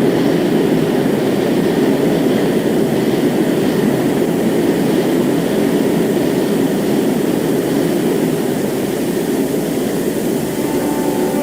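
Jet aircraft engine noise: a steady, loud, even rush without any clear tone.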